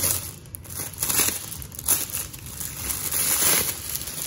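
Clear plastic bag crinkling and rustling in several bursts as a fabric pouch is worked out of it by hand.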